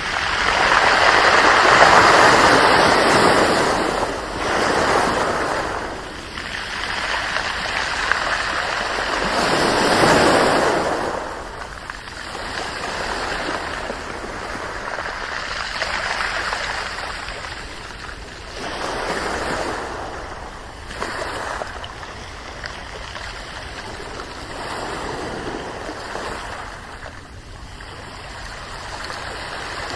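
Ocean waves breaking and washing in, rising and falling in slow surges. The biggest surge comes at the start and another about ten seconds in, with smaller, softer ones after.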